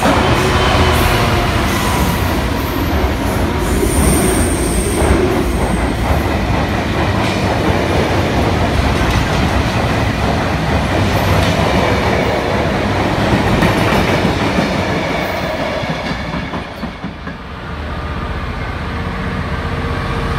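Colas Railfreight class 66 diesel locomotive passing close, its two-stroke V12 engine running, followed by a rake of loaded box wagons rumbling and clattering over the rails, with a brief high wheel squeal about four seconds in. After a short dip near the end, another class 66 diesel approaches.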